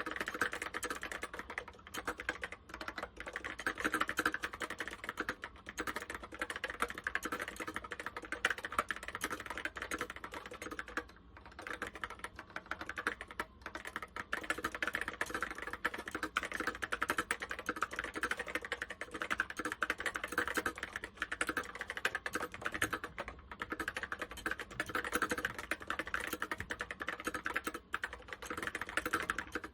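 Typing on an Apple M0110 keyboard with Alps SKCC tall cream and cream lock switches: a fast, steady stream of key clicks, with a short pause about eleven seconds in.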